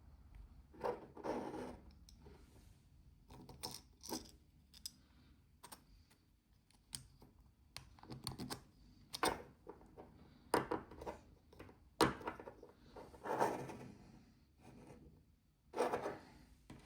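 3D-printed plastic parts being handled and fitted together by hand: irregular sharp clicks and short scraping rubs.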